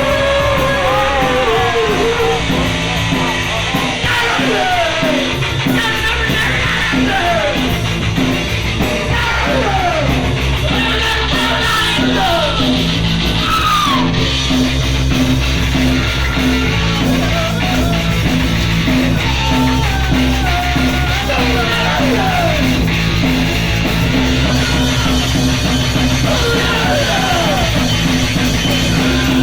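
Punk rock band playing live, with yelled vocals over the full band.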